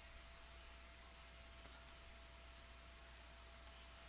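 Faint computer mouse clicks, two quick pairs about two seconds apart, over a faint steady hum.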